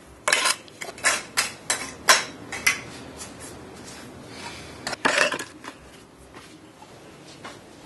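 Metal scraping and clinking as dry cement mix is worked into a metal cement-tile (ladrilho hidráulico) mold by hand: about eight short, sharp strokes over the first three seconds, then a metal clank a little after five seconds as the heavy lid is set onto the mold.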